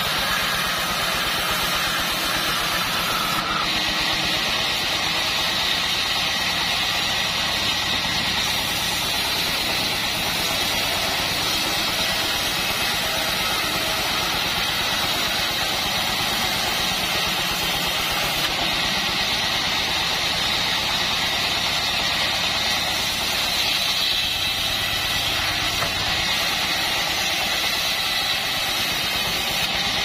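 Homemade bandsaw mill running steadily under load, its band blade sawing lengthwise through a log, with the engine's drone and the cutting noise blended into one even din.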